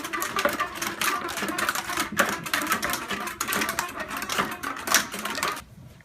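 Many homemade rubber-band instruments being plucked at once by a class, a dense, uneven clatter of rubber-band snaps and twangs that stops suddenly near the end.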